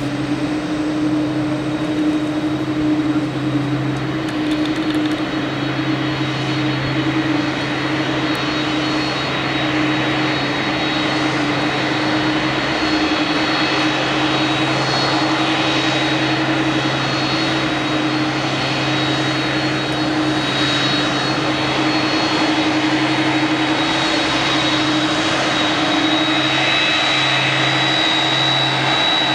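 Twin turbofan engines of a Boeing 767 freighter running at taxi idle: a steady jet rumble with a high whine. The whine grows stronger near the end as the jet's intakes turn toward the listener.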